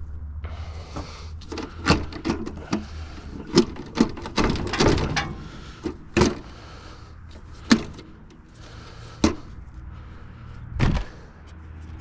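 Irregular knocks and clanks of wire and metal parts being handled while an air conditioner is stripped for scrap, a dozen or so sharp hits spread unevenly, with a steady low hum underneath.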